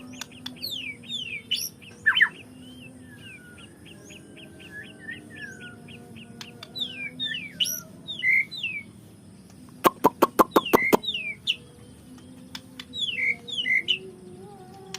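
White-rumped shama (murai batu) singing: quick whistled notes sliding down in pitch and a fast trill, with a burst of about eight sharp clicks around ten seconds in.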